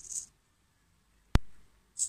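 Small hobby servos of a two-axis pan-tilt camera mount whirring briefly as they move under potentiometer control, stopping near the start. A single sharp click follows a little past the middle.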